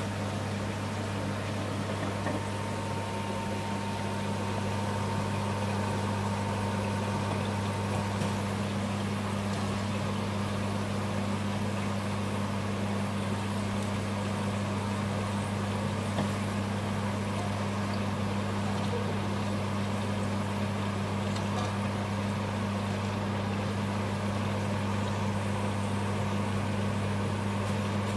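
Steady low hum over the sizzle of chips deep-frying in hot oil in a wok.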